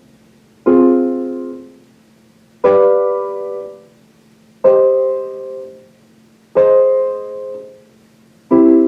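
Piano chords played on a keyboard: five chords struck one at a time, about two seconds apart, each ringing and fading for a second or so.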